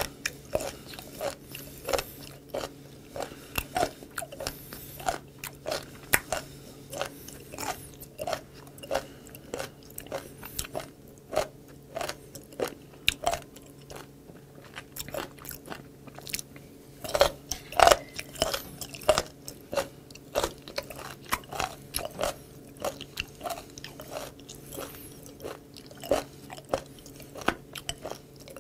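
Close-miked chewing of crunchy raw seafood: rapid, irregular crunching and clicking, loudest in a burst about seventeen to nineteen seconds in.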